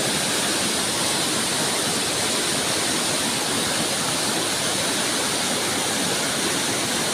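Mountain river in flood after rain, its muddy water rushing over boulders and rapids in a steady, even rush of white water.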